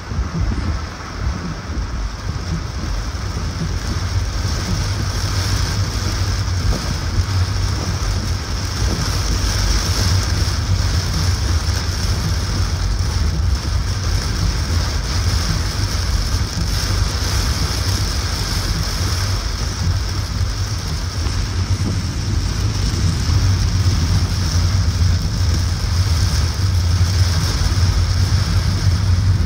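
A car driving in heavy rain: steady rain and tyre hiss on the wet road over a low road rumble, growing a little louder near the end.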